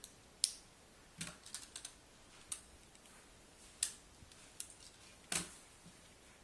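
Plastic toy car parts clicking and knocking as they are handled and fitted together: irregular sharp clicks, with a quick run of several a little over a second in.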